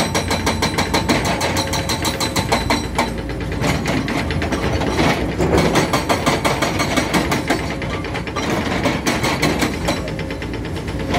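Hidromek 390LC H4 excavator running under load with a rapid, even clatter of about seven knocks a second; about halfway through, a load of earth pours from the bucket into a dump truck's bed.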